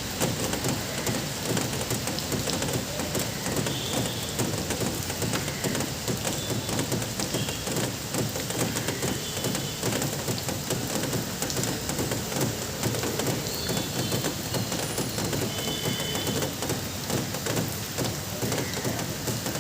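Steady rain falling, with a few faint short bird chirps now and then.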